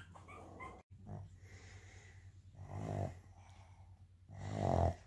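Sleeping Boston terrier snoring: two snores about a second and a half apart, each swelling up and stopping short, the second louder.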